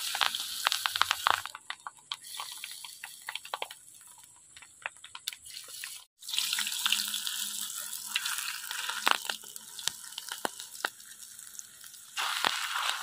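Batter-coated noni leaf deep-frying in hot oil in a pan: a steady sizzle with many small crackling pops. It cuts out briefly about six seconds in.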